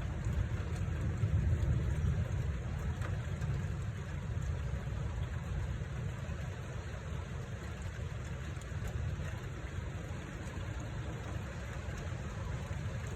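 Low rumble of distant thunder, swelling about a second in and then slowly fading.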